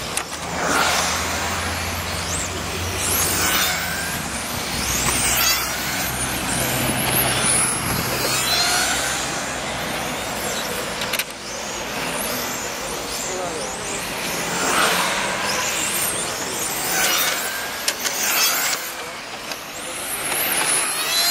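Radio-controlled racing cars circuiting an asphalt track, their motors whining up and down in pitch as they accelerate and brake through the corners, growing louder each time the pack passes.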